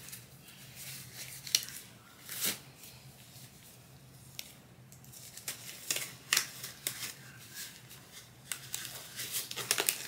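Scattered light clicks and rustles of small objects being handled, coming more often near the end, over a faint steady low hum.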